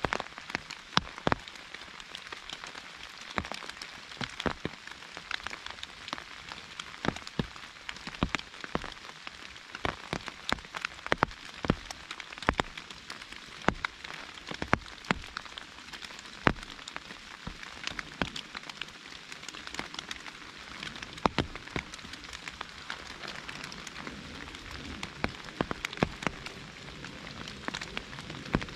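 Steady rain falling on an umbrella, with frequent loud, irregular taps of single drops striking over a constant hiss.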